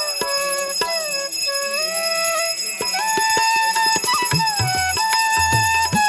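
Background music in a traditional style: a gliding wind-instrument melody over bell-like tinkles and light percussion, with a low drum beat coming in a little after the middle.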